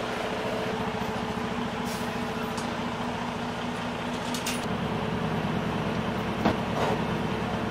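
Western Star 4900 log truck's diesel engine idling steadily, its note shifting a little past halfway. A few short hisses and two sharp knocks near the end.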